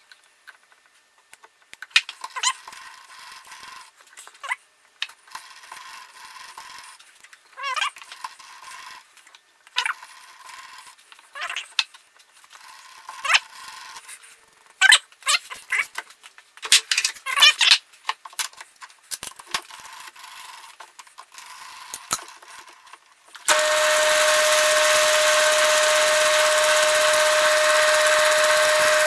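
Scattered short scraping and clicking sounds as a lathe tool scribes index lines into an aluminium collar and the spindle is turned by hand. About 23 seconds in, the lathe motor switches on and runs steadily with a steady whine.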